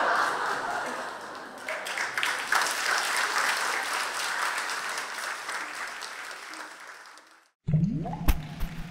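Theatre audience applauding, fading out over about seven seconds. Near the end a short logo sting starts: a rising sweep and a sharp chime.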